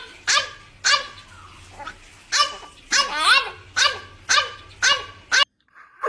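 A dog barking in short, sharp barks about twice a second, some rising in pitch, that cut off abruptly about five and a half seconds in.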